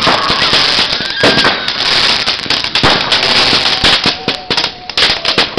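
Fireworks going off close by: a rapid, uneven string of bangs and crackles, with a few short whistles among them.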